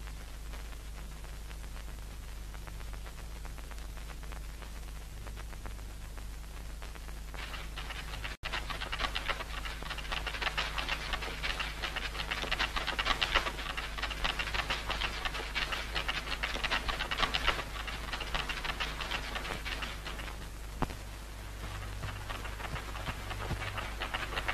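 Steady hiss and low hum of an old film soundtrack. From about eight seconds in, dense, rapid rustling and heavy panting of someone running through undergrowth take over, easing off shortly before the end.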